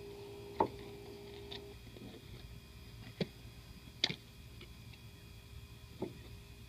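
Sharp plastic clicks, four in all and a second or more apart, the loudest about four seconds in, as the plastic cowl panel and its push-in retaining clips are worked into place. A faint steady hum runs under the first couple of seconds.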